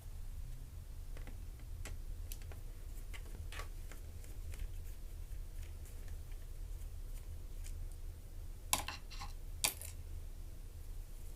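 Light clicks and ticks of a small screwdriver working the hard-drive screws on a laptop's underside, with two sharper clicks about nine and ten seconds in. A low steady hum lies under it.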